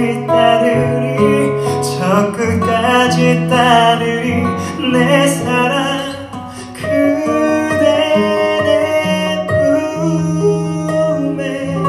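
Male voice singing a slow ballad live, accompanied by a plucked acoustic guitar.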